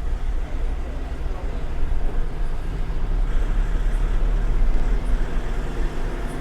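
Steady engine drone and road noise of a moving truck, heard from inside the cab.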